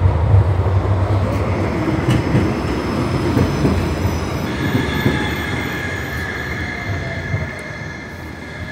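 Articulated tram passing close by: a loud rumble of wheels on the rails that slowly fades, with a high, steady squeal of the wheels on the track starting about halfway in.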